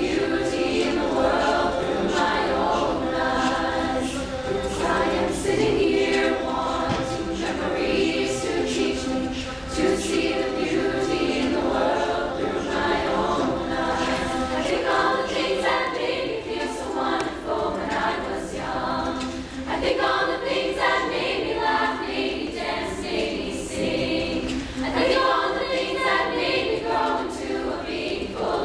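Mixed high school choir singing a cappella, many male and female voices in harmony.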